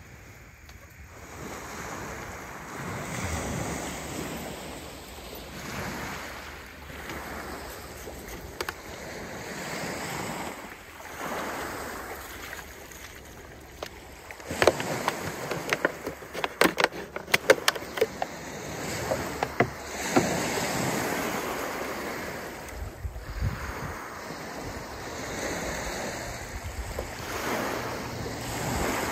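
Small lake waves washing onto a pebble beach, swelling and falling back every few seconds. About halfway through, a quick run of sharp clicks and clatters lasts a few seconds.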